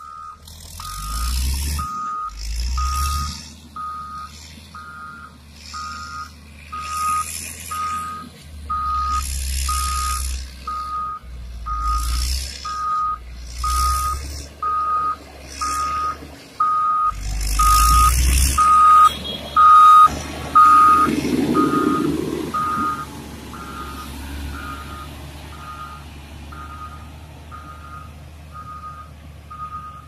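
Reversing alarm on a Caterpillar motor grader beeping at one steady pitch about once a second over the low rumble of its diesel engine. Gusts of rushing noise come and go over the first twenty seconds or so.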